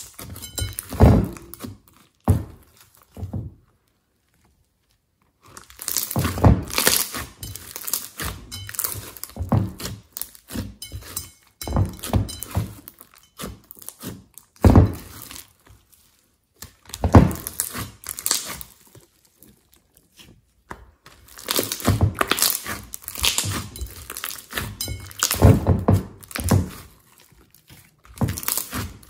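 Thick slime with small beads mixed in, squeezed, stretched and poked by hand: sticky squelches with quick clicks and crackles. The sounds come in bursts of a few seconds, with short silent pauses between handlings.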